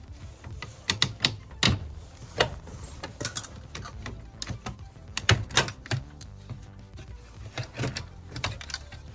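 A string of irregular sharp clicks and knocks from hand tools and plastic door trim being unscrewed, pried and handled.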